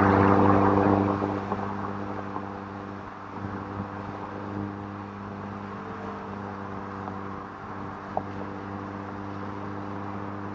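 Audi TT cruising at a steady speed on a winding highway: a steady, even engine hum with road and wind noise. A louder sound fades away over the first few seconds.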